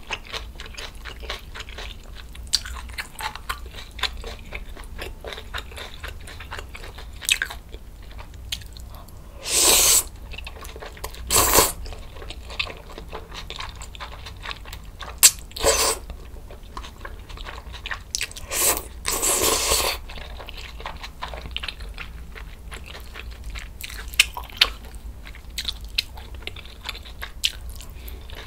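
Close-miked eating sounds: steady chewing with many small crunches, from fresh spicy kimchi and kalguksu noodles. Several louder, longer slurps between about ten and twenty seconds in, as noodles are sucked up.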